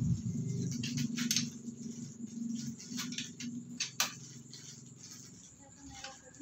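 A few sharp metallic clicks and clinks as a hand wrench works on the bare cylinder head of a scooter engine, over a faint low hum that dies away.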